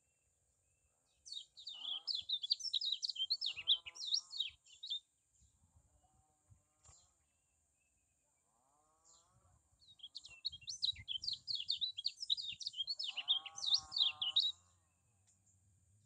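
Kecial kuning white-eye singing: two long bouts of rapid, high twittering chirps with lower warbled notes beneath them, separated by a short pause with only a few scattered notes.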